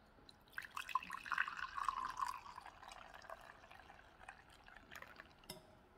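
Black coffee poured from a carafe into a china teacup: a stream of liquid splashing into the cup, strongest for the first few seconds and then thinning out. A single click near the end.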